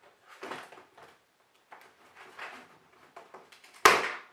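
Blichmann Beer Gun parts being handled in their hard black plastic carrying case: a few short scraping, rattling movements, then one sharp clack near the end, the loudest sound.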